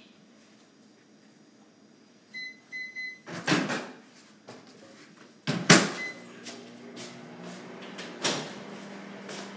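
Three short electronic beeps, then two loud knocks like a door or cupboard being shut, then another short beep and a steady low hum starting about six seconds in.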